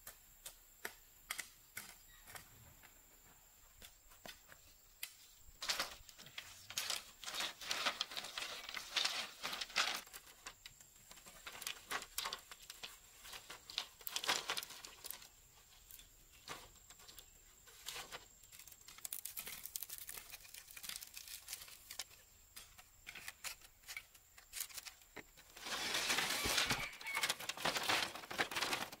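Split green bamboo strips being handled and sorted by hand: light clacking clicks as the strips knock together, with bursts of dry scraping and rustling.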